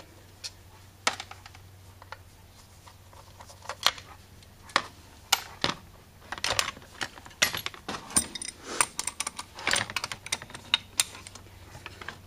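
Light metal clicks and clinks from taking apart an Autolite 4100 carburetor: small parts, screws and tools tapping on its aluminium body. The clicks are sparse at first and come thick and fast from about halfway through as the carburetor is handled and turned over.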